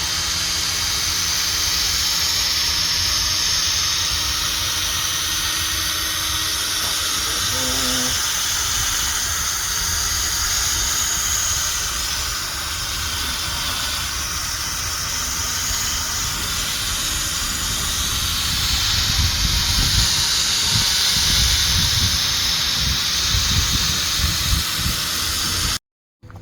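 Drill spinning an 800-grit sanding pad against a plastic headlight lens: a steady hissing whir with a low rumble. It cuts off abruptly near the end.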